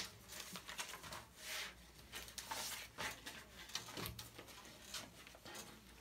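Faint rustling and light taps of paper as the pages of a spiral-bound notebook are turned and handled on a tabletop.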